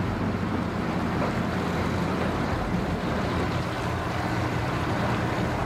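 Sea-Doo personal watercraft running slowly at idle speed: a steady low engine hum with water wash.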